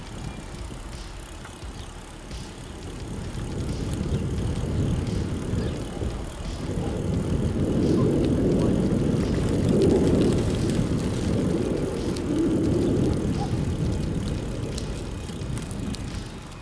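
Wind rumbling on the camera microphone together with tyre noise on a rough asphalt lane during a ride. It swells through the middle and eases off near the end.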